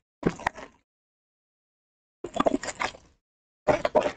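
Trading card pack wrapper crinkling and tearing as it is ripped open by hand, in three short bursts of rustling with sharp crackles.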